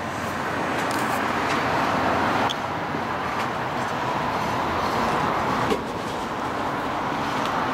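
Steady hum of city traffic, with two sudden drops in level partway through.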